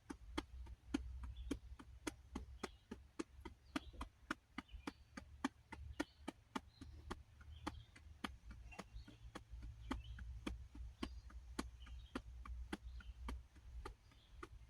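Steady, rapid tapping with the fingertips on the belly, about four sharp taps a second, over a low hum.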